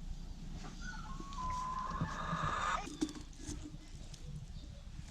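A single drawn-out farm animal call lasting about two seconds, mostly held on one pitch and ending with a short downward slide. A few sharp knocks follow about three seconds in.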